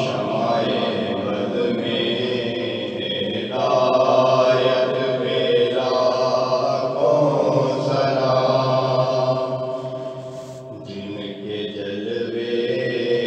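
An Urdu naat sung by a male reciter in long, drawn-out held notes, with no instruments. The voice eases off briefly near the end before the next line begins.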